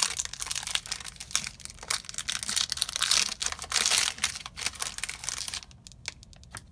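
Foil trading-card booster pack wrapper crinkling and being torn open, a dense crackling that stops about five and a half seconds in, followed by a few faint clicks.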